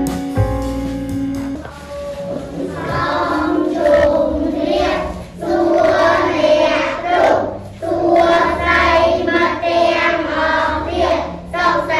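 Background instrumental music ends within the first couple of seconds, then a class of children chant together in unison in a sing-song chorus.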